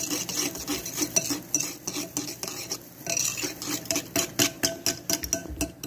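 A spoon stirring barbecue sauce with ketchup and sugar in a bowl, clinking against the bowl in quick, irregular taps.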